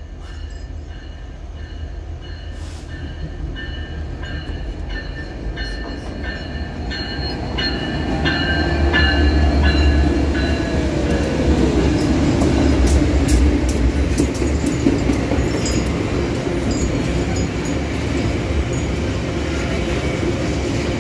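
Freight train hauled by diesel-electric locomotives (an EMD SD70, a GE Dash-9 C44 and a GE C36-7) approaching and passing. The engine rumble builds to its loudest as the locomotives go by about ten seconds in, and their note falls in pitch as they pass. Then the loaded wagons roll past with their wheels clicking over the rail joints.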